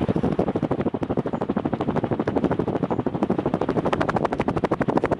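Strato Fan industrial ceiling fan, made by Evergo in 1984, running on high speed; its blades give a rapid, even chopping of air, about a dozen pulses a second, buffeting the microphone.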